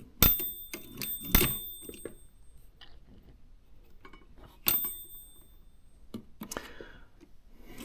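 Margin bell of a Brother JP-chassis portable typewriter dinging three times, twice close together in the first second and a half and once about five seconds in, each ring dying away within a second or two. Light mechanical clicks of the typewriter come in between.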